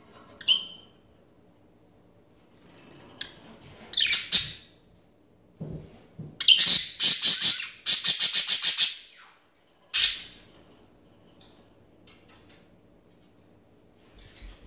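Pet budgerigars calling in their cage: a few sharp squawks and chirps, and a rapid string of chattering calls about halfway through.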